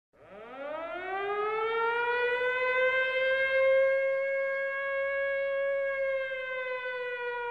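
Air-raid siren winding up: a single wailing tone that rises over about a second and a half, then holds steady and sags slightly near the end.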